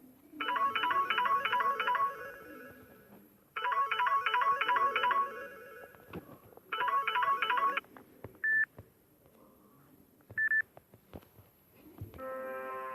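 Samsung phone ringtones playing: a quick repeating pattern of bright electronic notes sounds in three bursts, the last one shorter, followed by two short high beeps. Near the end a different ringtone starts, with steady held notes.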